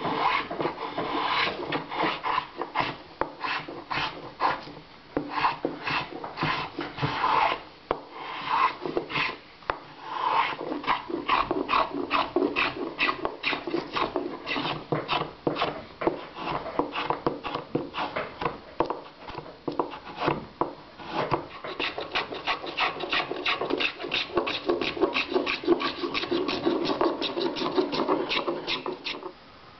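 Travisher shaving across the grain of a wooden chair seat, hollowing it in rapid short strokes, each a scraping cut that peels off a curled shaving. The strokes come faster in the last third.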